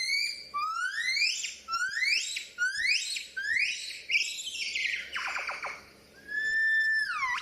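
Baboon calling: a run of shrill, pitched calls, each rising in pitch, about one a second, then a held call that drops in pitch near the end.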